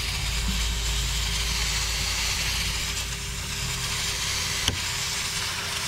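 Radiator Genie cleaning wand on a garden hose spraying water into an ATV's radiator: a steady hiss of spray with a faint steady tone under it, and a single click near the end.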